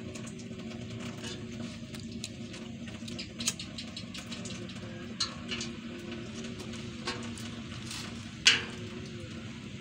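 Scattered sharp clicks and knocks from cardboard briquettes being loaded into a small briquette stove and a lighter being struck to light them, over a steady low hum. The loudest knock comes about eight and a half seconds in.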